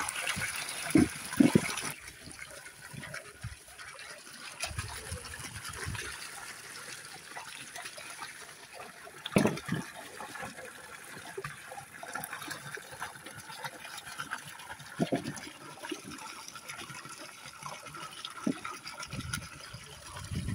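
A stream of water pouring and splashing into a steel basin as hands rinse vegetables in it, louder in the first couple of seconds, with a few short knocks.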